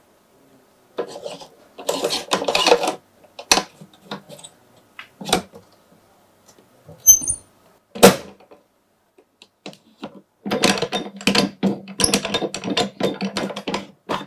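A phone being set into and clamped on an aluminium back-glass separator fixture: scattered handling clicks and metal knocks, a sharp knock about eight seconds in, then a dense run of small rattling clicks near the end as the clamp parts are adjusted.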